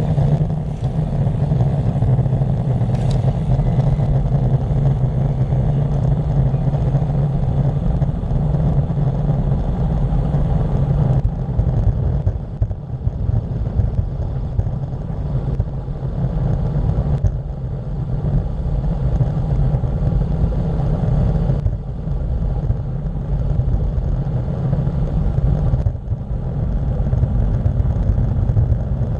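Steady wind rumble on a bicycle-mounted camera's microphone during a fast descent on a paved mountain road, mixed with tyre noise on the asphalt; it eases briefly a few times.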